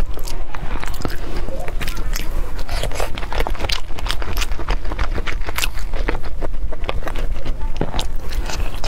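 Close-miked mukbang eating of a soft steamed dim sum dumpling: wet bites, chewing and lip smacks with many small, sticky mouth clicks, over a steady low hum.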